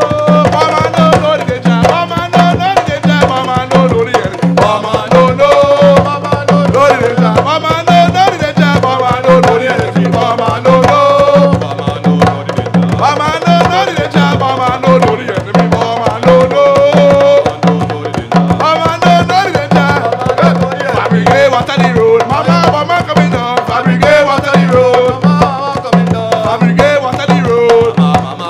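A live hand-drum ensemble playing a steady rhythm with an even, repeating low drum beat, while a man sings a melody over the drums.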